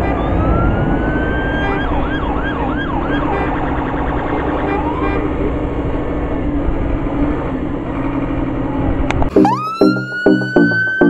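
Scania turntable ladder fire engine's diesel engine running steadily with its ladder raised, with a siren sounding over it: a rising wail about a second in, then four quick up-and-down sweeps. Near the end it cuts abruptly to music with a steady beat and a rising, then held, tone.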